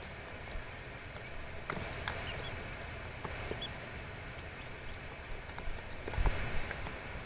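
Four-day-old Eastern wild turkey poults moving about, with scattered light taps and scratches and a couple of brief, faint high peeps over a steady hiss. A dull low thump comes about six seconds in.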